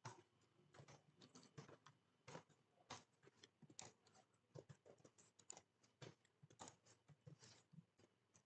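Faint typing on a computer keyboard: quick, irregular keystrokes, several a second, with short pauses between bursts.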